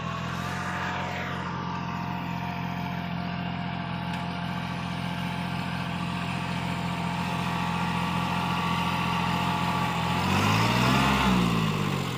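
Kubota NeoStar compact tractor's diesel engine running steadily under load while it pulls a cultivator through a field, with a thin steady whine above the engine note. Near the end the engine pitch rises and falls once.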